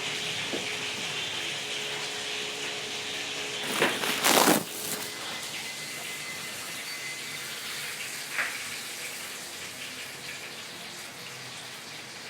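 Hot oil sizzling steadily as milkfish (bangus) fries in a pan, with one short, loud burst of noise about four seconds in.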